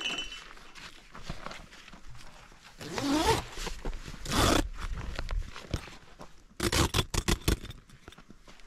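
Heavy tent canvas rustling and scraping as hands pull it and fasten it along the tent's wooden base rail, with a quick run of sharp knocks late on.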